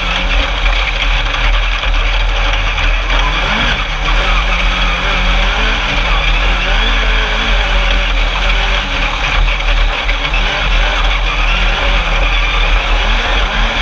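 Alumicraft Class 10 single-seat off-road race buggy's engine running hard, its revs rising and falling again and again as it drives over sand tracks. It is heard from an onboard camera under a loud, steady rush of noise.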